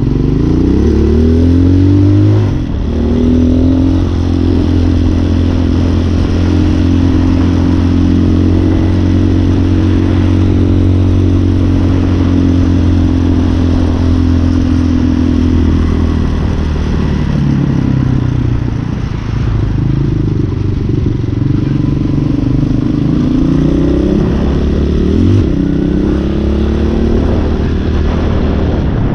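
Hawk 250 dual-sport motorcycle's single-cylinder engine under way: revs climbing over the first two seconds, a brief drop about two and a half seconds in as it shifts, a steady cruise for about twelve seconds, then revs falling and rising again through the last part.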